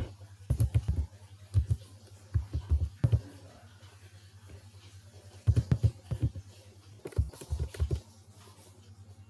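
Computer keyboard typing in several short bursts of keystrokes, with pauses between them.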